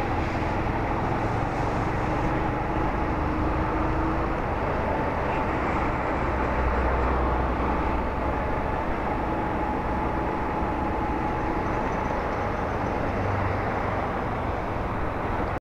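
Motorcycle riding along a city street: its engine runs steadily under a constant rumble of road and wind noise, with a thin, steady whine on top.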